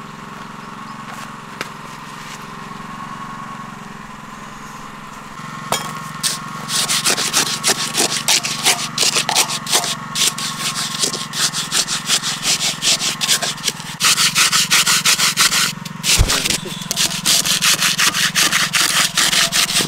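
A metal bar jabbed rapidly up and down into fairly dry, coarse sand-and-cement mix around a steel post, making a fast gritty scraping from about six seconds in; it is consolidating the concrete and working the air out. Before the scraping starts, a steady low hum.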